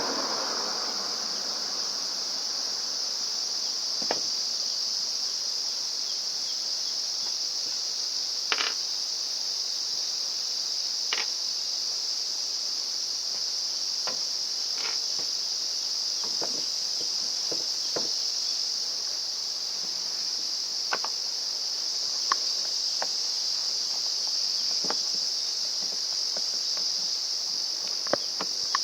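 Steady, unbroken high-pitched insect chorus, with a scattering of short, light clicks and taps every few seconds from small parts being handled.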